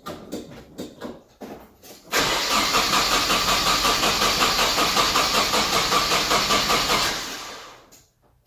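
Nissan 240SX engine cranking on the starter motor with an even pulsing rhythm for about five seconds, then dying away without ever catching: a crank-no-start that persists despite new coil, new plugs, checked grounds and fuel checks. A few light clicks and knocks come before the cranking begins.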